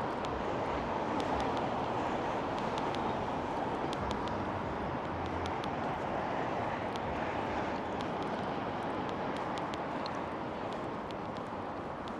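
Steady road traffic noise, easing off slightly toward the end, with faint small ticks over it.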